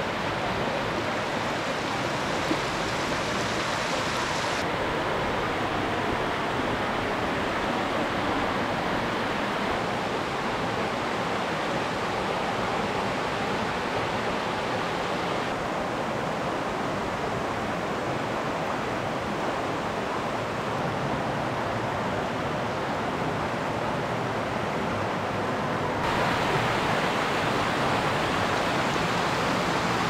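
Shallow stream rushing over a rocky bed: a steady wash of water noise. Its tone changes abruptly a few times, and it is loudest near the end.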